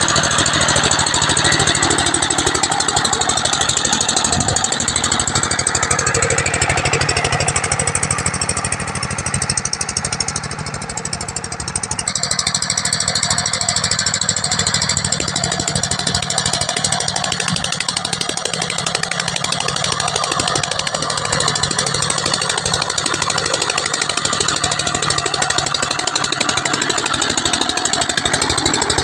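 Single-cylinder diesel engine of a công nông farm truck running steadily under load as it hauls a heavy pile of corn stalks across soft ploughed ground. It dips a little about ten seconds in, then runs on as before.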